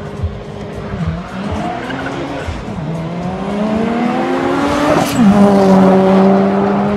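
Drag-racing cars, including a Toyota Celica GT4 ST205 with its turbocharged four-cylinder, accelerating hard down the strip. The engine pitch climbs, falls briefly at a gear change partway, then climbs again. About five seconds in the cars pass close: the sound jumps louder and the pitch drops sharply before holding steady.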